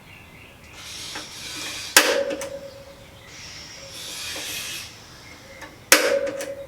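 Two sharp metal-on-metal strikes about four seconds apart, each ringing briefly, and each preceded by a second or so of hissing scrape.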